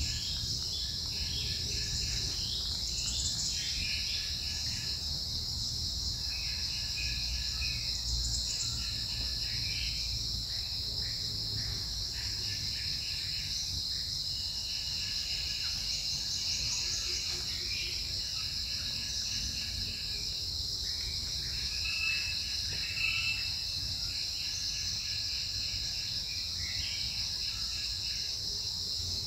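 Steady high-pitched drone of insects, with many short bird chirps over it.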